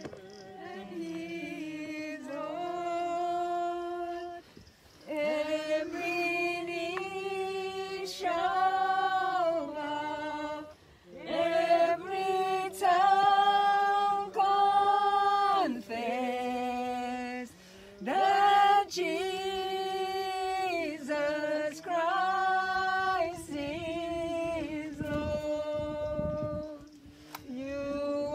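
A group of mourners singing a slow hymn together, each note held for a second or two, in phrases with short breaks between them.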